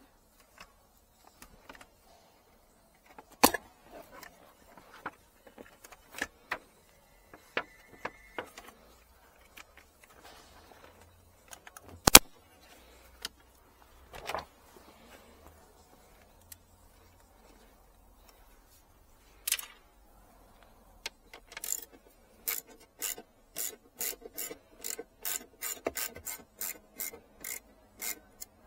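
Scattered knocks and clicks of tools and parts being handled, then, about two-thirds of the way in, a ratchet wrench worked back and forth in quick, even strokes, about two to three clicks a second.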